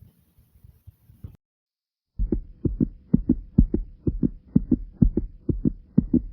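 Human heartbeat picked up from the chest. After faint low rustling and a short stretch of silence, loud lub-dub pairs of thumps start about two seconds in and repeat quickly, about two beats a second.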